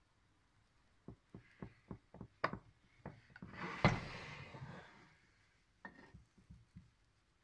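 Kitchen knife scoring raw pie dough in a metal baking tray, the blade tapping against the tray in a quick run of about seven knocks, then a longer scraping stretch with one sharp knock in it, and a few more taps near the end.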